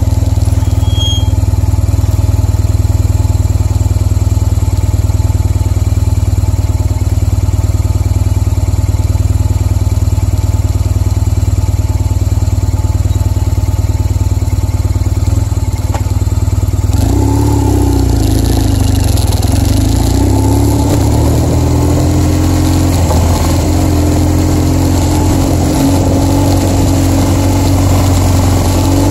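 BMW R1200GS flat-twin boxer engine idling steadily, then about seventeen seconds in pulling away, its pitch rising and falling as the motorcycle gets under way.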